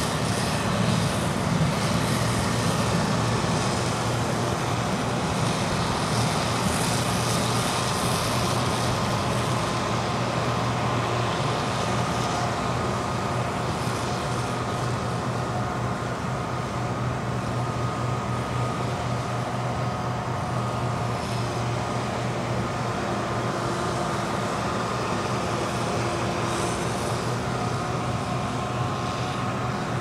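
Case IH Axial Flow 2388 combine harvester running steadily while harvesting corn: a low mechanical drone with a steady whine above it.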